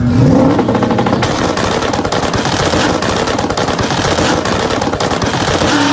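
Twin-turbo V8 of a 1400 hp 2003 Mustang Cobra at full throttle on a drag-strip launch, rising in pitch at the start as it pulls away, with a loud, rapid crackling rattle.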